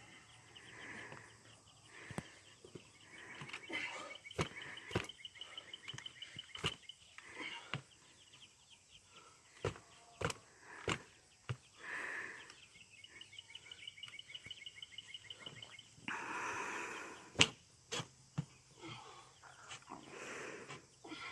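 Quiet outdoor background with scattered sharp clicks and short chirps. A rapid trilling call sounds twice, starting about four seconds in and again about thirteen seconds in.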